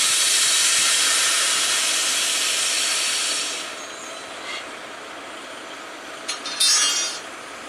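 Compressed air hissing out in a loud, steady rush that dies away after about three and a half seconds, followed by two brief hisses near the end.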